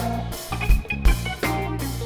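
Live instrumental rock band playing a jam: a sustained bass line and a kick drum hitting about once a second, under guitar and keyboards.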